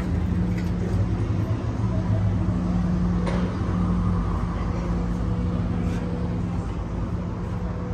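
Steady low rumble of a running vehicle, with a constant low hum.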